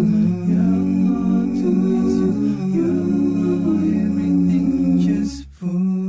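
A cappella background music: voices singing and humming in harmony with no instruments. It breaks off about five and a half seconds in, and a short new sung phrase starts.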